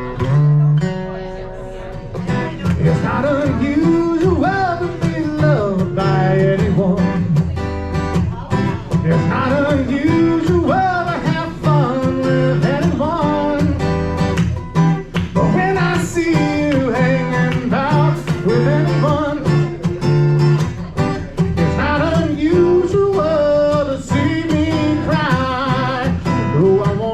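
Live music: an acoustic guitar strummed and picked over a steady, repeating bass line, with a singing voice carrying the melody.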